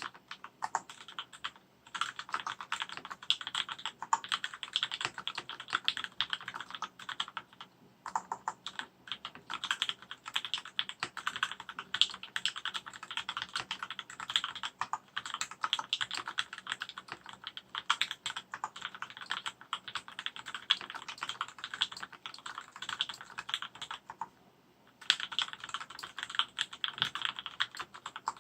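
60% mechanical keyboard with Gateron Clear linear switches on 62 g springs and JT black keycaps being typed on in fast continuous runs, a dense patter of key clacks broken by short pauses about 1.5 s in, about 8 s in, and near the end.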